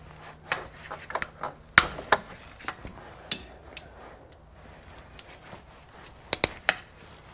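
Scattered metallic clinks and taps of a hand ratchet and socket knocking against bolts, with a couple of sharp clanks about two seconds in and a few more near the end.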